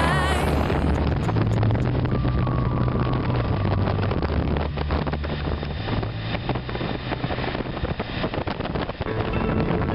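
Wind rushing and buffeting over the microphone of a moving motorcycle, with the engine and road noise as a steady low hum underneath. The buffeting grows choppier in the second half.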